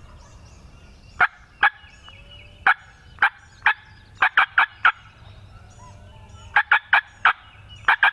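Hand-operated turkey call imitating a hen: loud, short, sharp yelps and cutts in irregular runs, some single and some in quick clusters of three or four. It is being used to call a gobbling tom in to the decoys.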